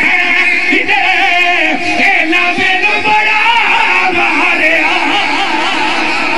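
A crowd of mourners' voices singing and wailing a lament together, several overlapping pitches wavering up and down.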